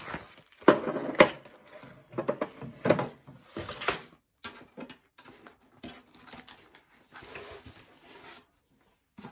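Hard plastic knocks and clatter as the white accessory tray of a Pfaff Expression 710 sewing machine is slid and pushed onto its free arm, followed by softer scraping and rustling.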